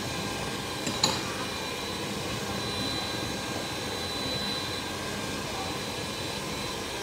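Electric stand mixer running steadily, its beaters whisking eggs and sugar in a glass bowl until thick and pale, with a short click about a second in.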